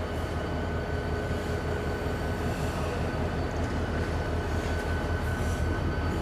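Diesel locomotive engine running with a steady low rumble and a faint steady whine above it as it slowly pushes a steam locomotive along the track.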